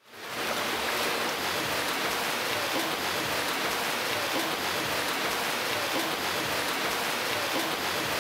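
Steady rushing water noise, fading in at the start and holding even throughout.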